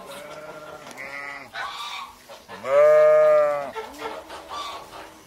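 Four drawn-out, goat-like bleating calls from a farm animal; the third, from about two and a half seconds in, is the loudest and lasts about a second.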